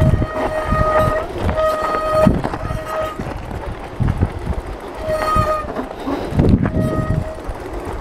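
Mountain bike brakes squealing in five short spells while braking on a rocky downhill trail, with a pause near the middle. Under it, the bike rattles and knocks over loose stones.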